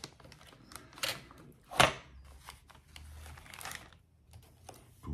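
Handling sounds as surgical instruments are picked up and set down: a series of short sharp clicks and rustles, the loudest a single click a little under two seconds in.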